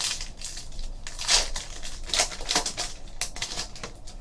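Trading card packs being handled: wrappers crinkling and cards rustling and snapping in a run of irregular bursts, loudest about a second in.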